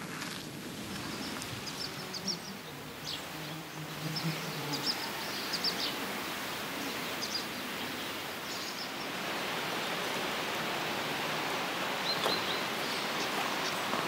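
Rural outdoor ambience: a steady hiss with scattered short bird chirps.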